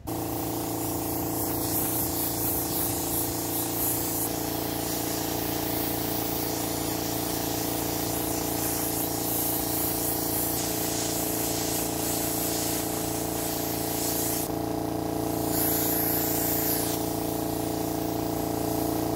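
Small electric compressor switching on and running with a steady hum while a spray gun hisses, spraying a wood finish. The hiss grows louder and brighter for a couple of seconds near the end.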